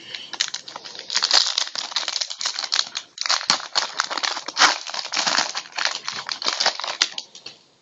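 Trading card pack wrapper crinkling as it is torn open and handled: a dense run of crackles with a short break about three seconds in.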